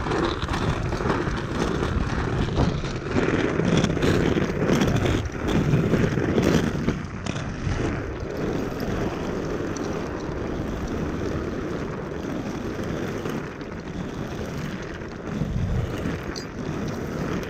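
Wind buffeting the microphone over the steady rumble of inline skate wheels rolling fast on pavement, louder for a few seconds about three seconds in.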